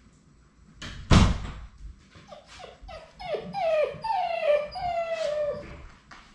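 A thump about a second in, then a Labrador retriever puppy whining: a run of about eight short cries, each falling in pitch, the later ones drawn out longer.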